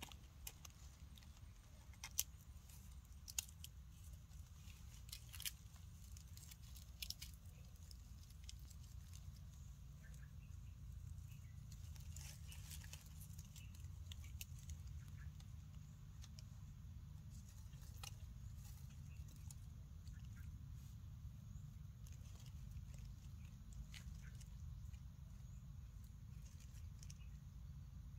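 Baby macaque sucking and mouthing its fingers: faint, scattered wet clicks and smacks over a low steady rumble, with a few sharper clicks in the first several seconds.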